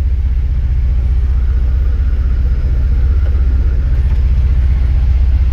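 Can-Am Defender's Rotax HD10 V-twin engine running steadily at about 1850 rpm in low range, holding the side-by-side back on a steep descent with no brake or throttle. A low, even rumble heard from inside the closed cab.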